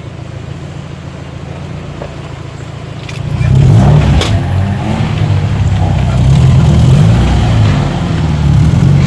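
Car engine running steadily, then about three seconds in it gets much louder with an uneven low rumble, as when revved or driven off.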